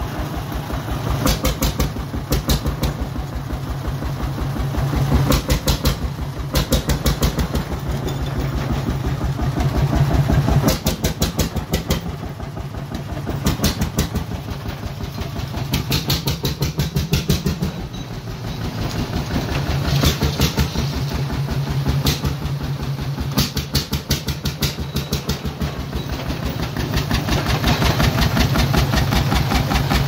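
Venn-Severin single-cylinder two-stroke hot bulb diesel engine of about 1,000 cubic inches, circa 1925, running after start-up with a rapid, even exhaust beat that swells and eases in loudness.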